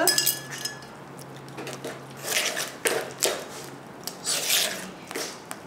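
A metal spoon stirring and scraping thick cake batter against the sides of a plastic bowl, in uneven strokes, with several louder scrapes from about two seconds in.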